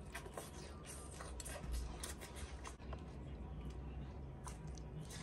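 Close-up eating sounds: chewing and lip-smacking, a run of small irregular wet clicks.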